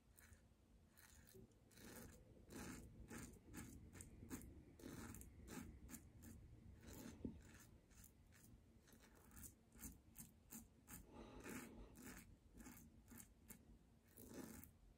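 Faint scratchy strokes of a King C Gillette double-edge safety razor cutting stubble on lathered skin, several short strokes a second in uneven runs.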